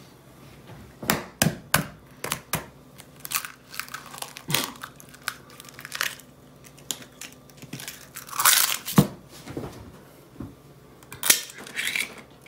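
Eggs being cracked into a plastic mixing bowl: a run of sharp taps and cracks of eggshell, with shell crunching. The loudest crunches come about two-thirds of the way through and again near the end.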